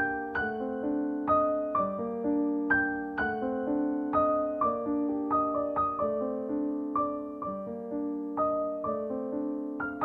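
Slow, gentle piano music: single notes and chords struck about twice a second, each left to ring and fade.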